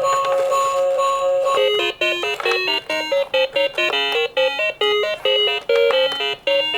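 An electronic tone held with a slight waver, then from about a second and a half in a quick beeping melody of short stepped notes.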